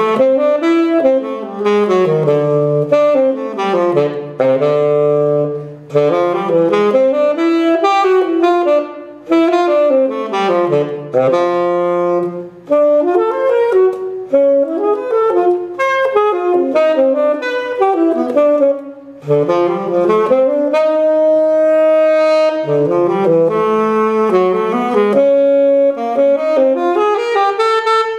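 Solo tenor saxophone, unaccompanied, playing a jazz etude melody in phrases broken by short breaths. About two-thirds of the way through it holds one long note before moving on.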